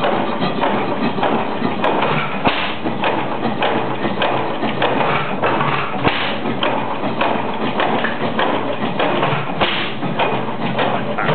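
1911 La Crosse Sta-Rite 12 hp hit-and-miss gas engine running, its valve gear and flywheels clattering steadily with a heavier knock every few seconds. It has only just been started for the second time and is still out of adjustment.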